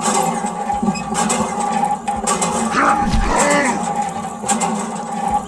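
A single animal call about three seconds in, bending up and then down in pitch, over a steady background sound.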